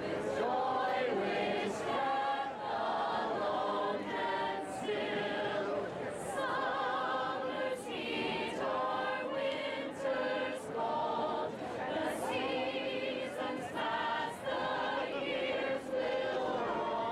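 A group of young women singing a song together in chorus, with sustained notes that change every half second or so.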